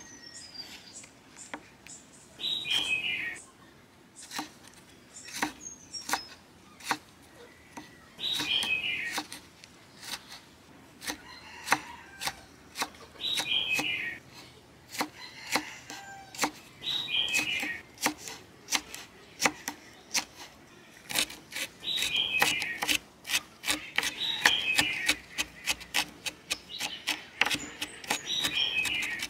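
Chef's knife chopping red chili peppers on a wooden cutting board. Separate sharp taps at first become a fast run of strikes in the second half. A bird repeats a short falling series of chirps every few seconds in the background.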